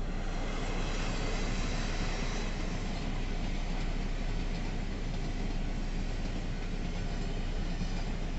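Freight train of covered hopper wagons hauled by the E317 electric locomotive rolling past close by: a steady rumble and rattle of steel wheels on the rails.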